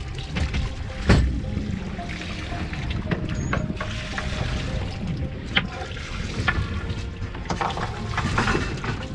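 Sea water sloshing against a small boat's hull, with knocks and clatter as a string of mackerel is swung aboard; one sharp knock comes about a second in. Music plays underneath.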